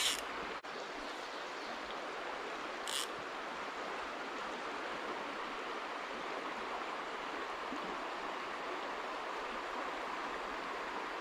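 Stream water running steadily over a shallow stony bed, with a short high hiss about three seconds in.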